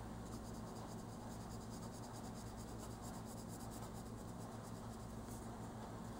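Oil-based colored pencil scratching faintly on coloring-book paper in rapid back-and-forth shading strokes, stopping about five seconds in, over a low steady hum.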